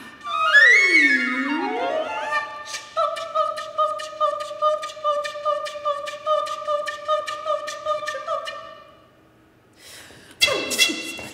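Flute and soprano voice in a contemporary duet: sweeping pitch slides at first, then one held note under a regular run of sharp clicks, about three a second. After a brief hush, both come in loudly near the end.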